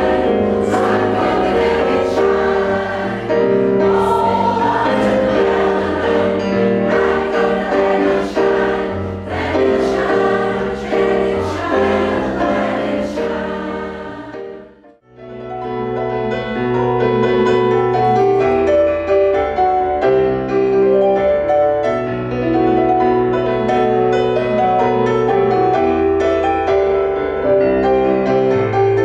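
Community choir singing with keyboard accompaniment. About halfway through, the sound fades out briefly, then the singing picks up again.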